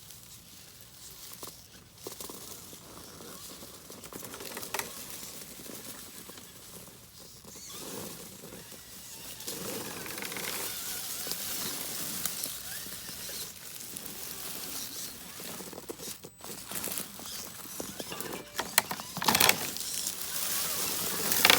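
Redcat RC rock crawler working over rocks and dirt: an irregular crunching and scrabbling that grows louder, with a few sharp knocks near the end.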